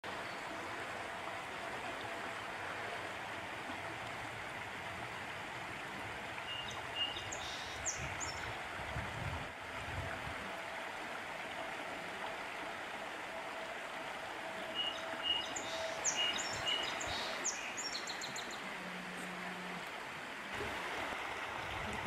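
Shallow stream rippling over rocks, a steady rush of water. Bird chirps come through it twice, about a third of the way in and again past the middle.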